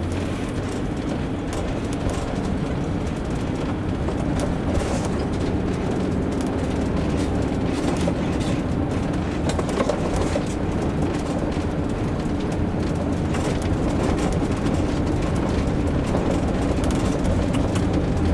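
Motorhome's engine and road noise heard from inside the cab while driving, a steady low drone with scattered light clicks and rattles, growing slightly louder toward the end.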